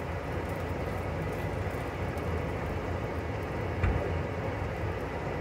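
A steady low rumble, with one light tap about four seconds in.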